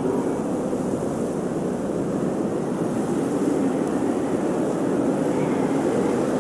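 Blizzard wind blowing hard and steadily, with a low howl that slowly rises and falls in pitch.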